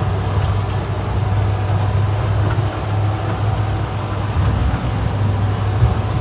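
Fishing boat's engine running steadily under way, a constant low hum, with a hiss of wind and water over it.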